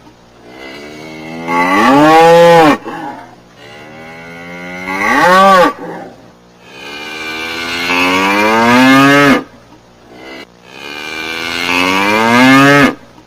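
A cow mooing four times in a row, each moo long and loud, rising in pitch, then dropping as it ends.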